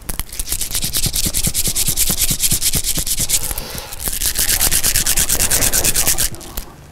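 Prayer beads (a mala) rubbed briskly between the palms, a rapid back-and-forth rasping of beads and skin. It runs in two spells with a short let-up about four seconds in, and stops shortly before the end.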